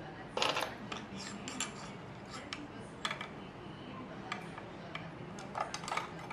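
Metal keys clinking and clicking against the steel door of a Chubb safe as a key is fitted into its lower door lock. There is a loud cluster of clicks about half a second in, then scattered single clicks, and a quick run of clicks near the end.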